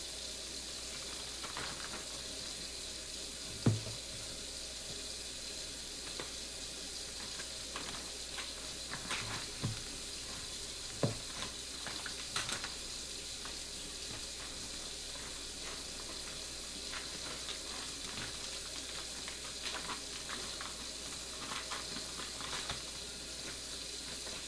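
Scattered soft knocks, crinkles and rustles of ground deer meat being packed by hand into plastic vacuum-seal bags, over a steady background hiss.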